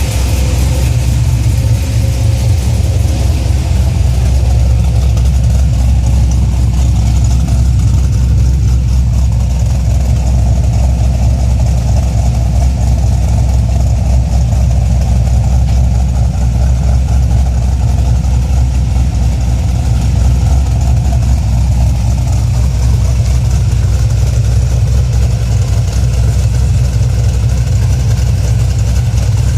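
2004 Cadillac CTS-V's 5.7-litre LS6 V8 idling steadily, with a deep, even exhaust note.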